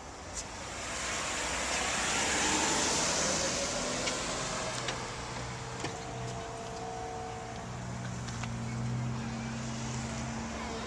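Power rear liftgate of a 2007 GMC Yukon Denali operating: a steady electric motor hum for about five seconds in the second half, with a few clicks, after a broad rush of noise swells and fades in the first few seconds.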